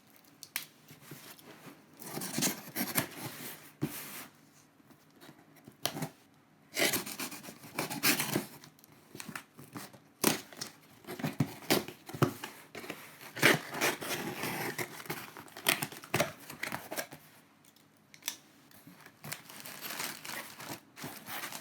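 A small shipping package being opened by hand: paper or plastic tearing and rustling, with air-pillow packing crinkling, in irregular bursts with a few clicks and short quieter pauses.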